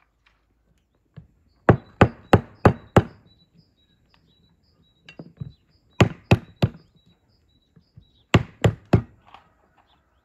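Walnuts being cracked open with a wooden stick on a log slice: three quick runs of sharp knocks, four or five blows each at about three a second, with a couple of lighter taps between the first two runs.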